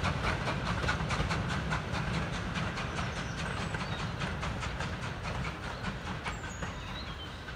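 Four-wheeled goods wagons and a brake van rolling over the track, their wheels clicking in quick succession over the rail joints with a low rumble underneath. The sound fades steadily as the train moves away.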